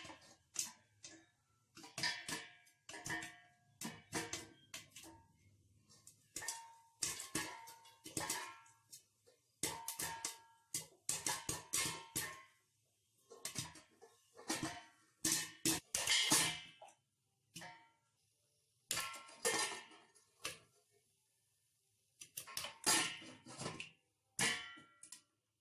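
Popcorn kernels popping inside a covered metal pan on the stove: irregular sharp pops, some close together, each hit on the lid ringing briefly, with short lulls about three-quarters of the way through.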